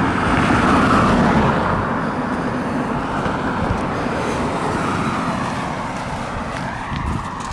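A car driving past on the road, its tyre and engine noise swelling about a second in and then slowly fading into steady traffic noise.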